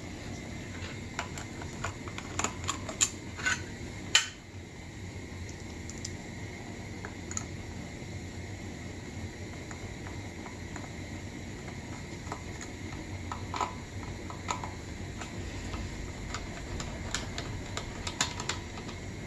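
Small metallic clicks and taps as an air compressor's pressure switch is opened and a screwdriver works its wire terminals, over a steady background hum. The taps come in clusters: a few seconds in, then again in the second half.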